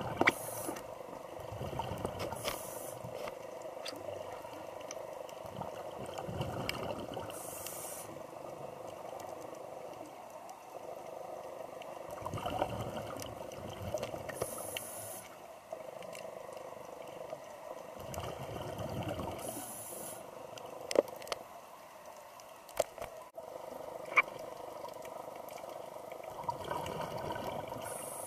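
Scuba breathing heard underwater: the hiss of a regulator and gurgling exhaled bubbles recur every few seconds over a steady water noise. A few sharp clicks come about two-thirds of the way through.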